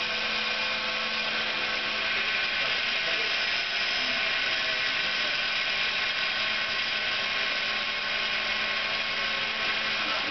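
Small CNC router's spindle running steadily while its bit mills a shallow pocket in a fibreboard sheet: an unchanging whine made of several steady tones over a dense, hissing cutting noise.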